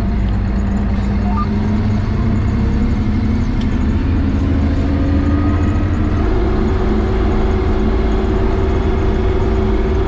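CAT Terragator fertilizer spreader's engine running under way, heard from inside its cab as a loud, steady rumble. Its note climbs slowly over the first six seconds or so, then holds steady at the higher speed.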